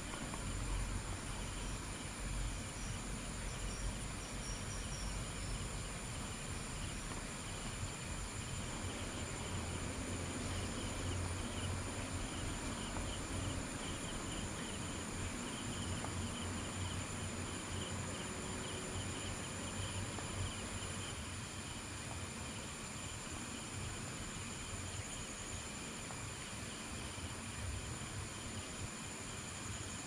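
Steady chorus of forest insects: a continuous high shrill buzz with a faster pulsing trill under it.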